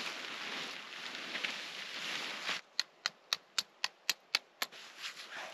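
Shuffling movement through snow that stops suddenly, followed by a series of about eight sharp, evenly spaced clicks, roughly four a second.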